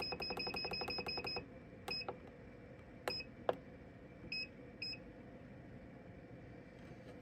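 Electronic beeping: a fast run of short, high beeps that stops about a second and a half in, then a few single beeps and a sharp click over a low hum.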